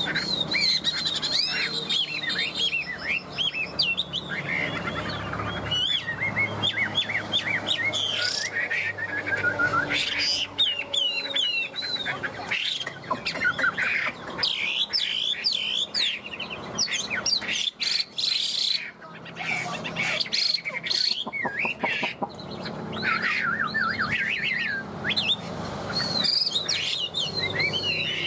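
Hwamei (Chinese melodious laughingthrush) singing: a long run of varied whistled phrases with quick up-and-down glides and trills, broken by a few short pauses.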